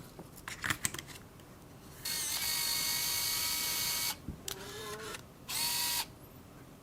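The motor of a Samsung compact film camera whirring for about two seconds, with a few small clicks after it, then a second short whir of about half a second.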